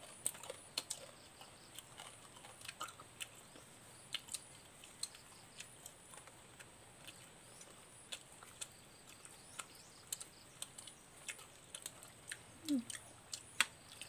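Close-up chewing while eating, with soft clicks and smacks of the mouth at irregular intervals.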